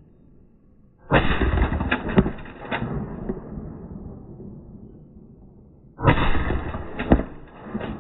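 Remington 870 pump-action shotgun fired twice about a second apart, racked between the shots, starting about a second in; a second pair of shots follows about five seconds later.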